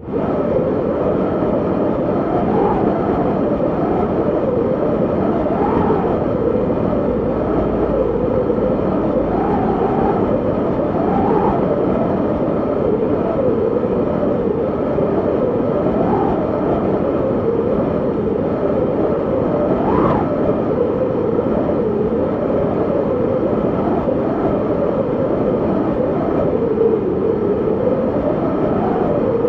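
Strong wind blowing steadily, with a whistling note that rises and falls as it gusts every second or two.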